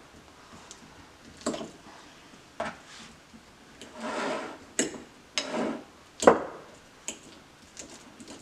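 Ripe bananas being mashed with a fork: irregular knocks and scrapes of the fork against the dish mixed with soft squishing, the loudest knock about two-thirds of the way through.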